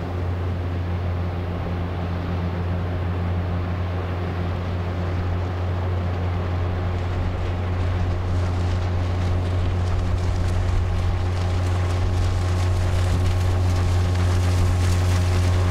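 Small outboard motor on a dinghy running at a steady speed, a low even hum. A rushing noise grows stronger over the second half.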